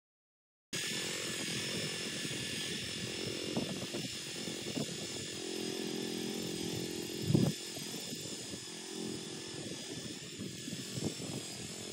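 Walk-behind tiller's small engine running steadily as it pulls a plough through the soil, starting abruptly under a second in. A single loud thump comes a little past halfway.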